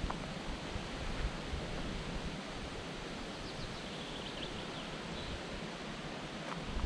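Outdoor forest ambience: a steady rushing hiss with gusts of low wind rumble on the microphone, and a few faint high chirps a little past the middle.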